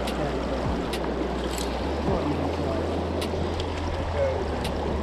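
Fast, shallow river running over a stony bed: a steady rush of water, with a low rumble underneath and a few light ticks.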